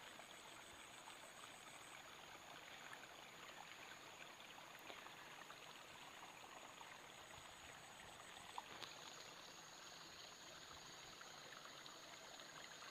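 Faint running stream water, close to silence, with a steady high-pitched tone above it and a few small ticks.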